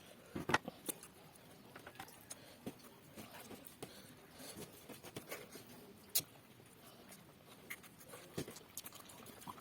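Quiet sounds of eating a rice and fish curry meal by hand: scattered small clicks and taps against the plates, the sharpest about half a second in and again about six seconds in.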